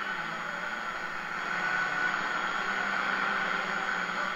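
1940 Stewart Warner 13-5U2 tube radio's speaker giving out steady hissing static on the AM broadcast band, with a weak station faint beneath it. The static is heavy midday reception noise.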